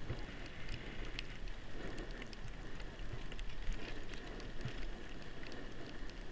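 Riding down a ski slope: a steady hiss of snow sliding under the rider, with scattered small crackles and a low wind rumble on the microphone.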